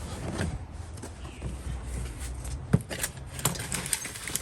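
Scattered clicks and knocks of a storage bin being opened and the tools inside being shifted, with one sharper knock partway through.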